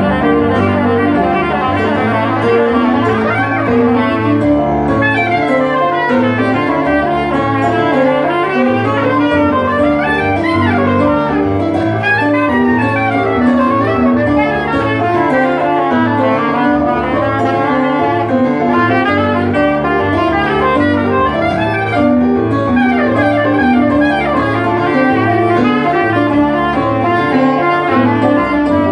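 Soprano saxophone playing a flowing melodic line over Roland stage-piano keyboard accompaniment with steady low bass notes.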